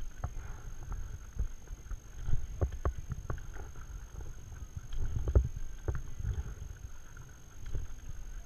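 Stand-up paddle strokes through calm water: the paddle dipping and pulling alongside the board, with sharp clicks and knocks every few seconds over a low rumble.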